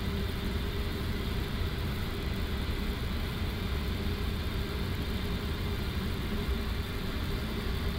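Steady low drone inside an Airbus A330-200 flight deck as the airliner creeps slowly forward onto its gate, its engines at idle, with a faint steady tone running through it.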